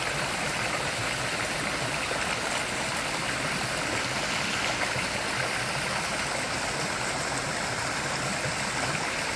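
Steady rush of a waterfall pouring down rock, with the stream below it, an even noise that holds the same level throughout.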